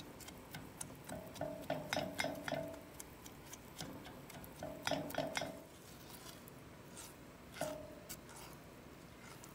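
A silicone spatula stirring berries and sugar in a metal saucepan: light clicks and knocks against the pan, several in quick succession about a second in, again around five seconds, and once near the end, some with a brief ring from the pot.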